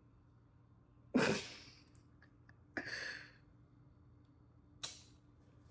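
A mostly quiet room with a few short breath sounds from a person. A sharp exhale comes about a second in, a softer breath around three seconds, and a brief click-like sound near five seconds.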